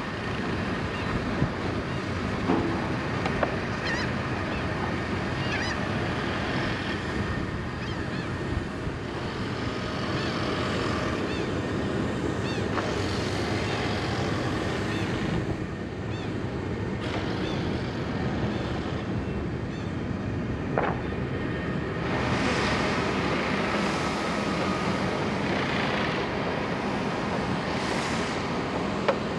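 Outdoor waterfront ambience with wind buffeting the microphone, and faint bird calls here and there.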